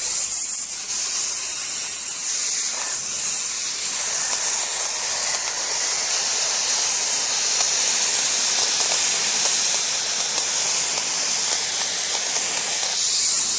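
Pneumatic spray gun for sprayable seam sealer spraying a test coat of sealer onto masking paper: a steady compressed-air hiss that cuts off abruptly at the end when the trigger is released.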